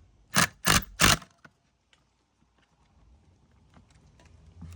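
Three quick squeezes of a caulking gun's trigger, about a third of a second apart, each a short sharp rasp, pumping sealant into a screw hole. Afterwards only a few faint ticks.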